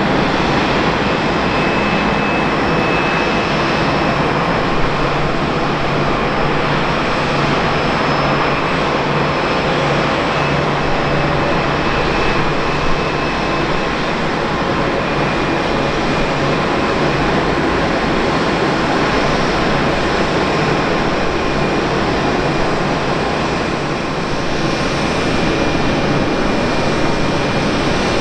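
Airliner jet engines running at idle on the apron: a steady, loud rush with a faint thin whine that comes and goes.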